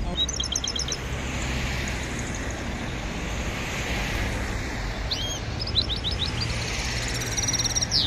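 Small caged songbirds chirping in short, high, quick phrases, once about half a second in and again through the last three seconds, over a steady low background hum.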